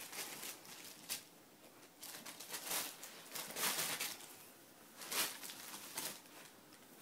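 A ferret rustling and tugging at a bag on carpet, in irregular bursts of rustling and scrabbling.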